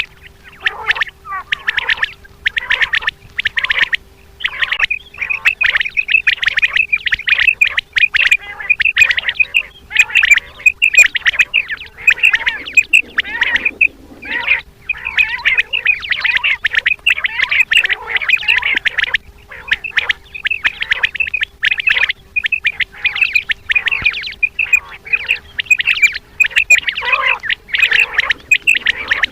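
Common quail calling: short, rapid calls repeated in quick runs with only brief gaps, with no pause throughout.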